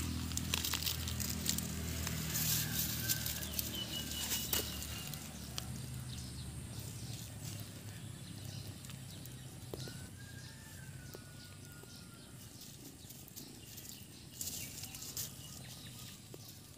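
Dry grass and fallen leaves rustling and crackling as a kitten is stroked and moved about on the ground, with a low rumble through the first few seconds that fades out.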